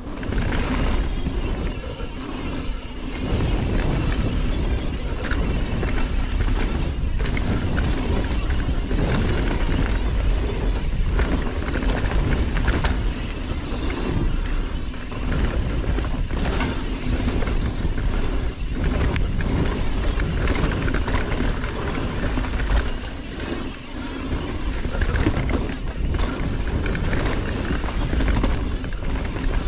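Evil Following full-suspension mountain bike ridden fast down a dirt singletrack: a steady low rumble of tyres on the trail and wind buffeting the action-camera microphone, with frequent short rattles and knocks from the bike over roots and bumps.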